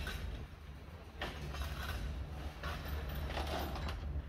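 Galvanized steel U-bolts scraped and clattering across a steel plate as a metal scraper rakes them along, in two bursts, about a second in and again near three seconds. A steady low hum runs underneath.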